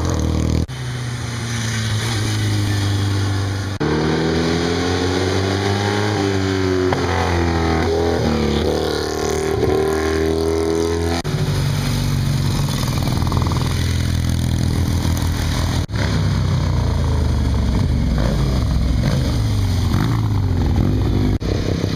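Several motorcycle engines accelerating past one after another, their revs rising and falling through the gears, with engine notes overlapping. The engine sound changes abruptly a few times, about four, eleven and sixteen seconds in.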